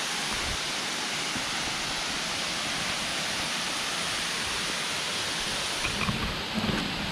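Waterfall pouring, a steady rush of falling water. Near the end a few low thumps come through, and the hiss loses some of its top.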